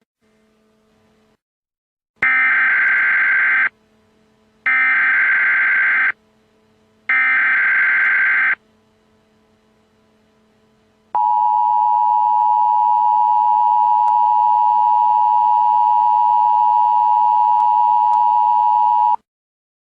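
Emergency Alert System tones: three short bursts of warbling SAME header data, each about a second and a half long with short gaps between them. About two seconds later the steady two-tone EAS attention signal (853 and 960 Hz together) sounds for about eight seconds and cuts off. Together they open the broadcast alert. A faint hum lies underneath.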